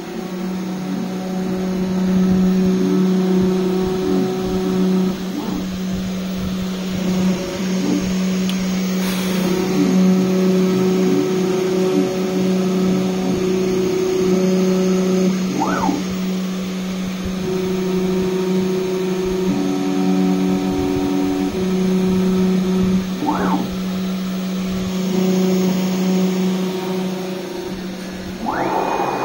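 Home-built CNC router engraving: a steady motor whine whose pitch shifts every few seconds as the axes move, with short pitch glides at some of the changes. Near the end a higher whine rises, holds briefly and falls, as on a quick axis move.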